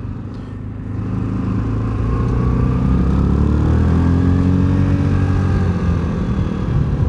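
Access Shade 850 Xtreme quad's engine pulling away from a slow roll, its pitch and loudness climbing from about a second in, then running steady.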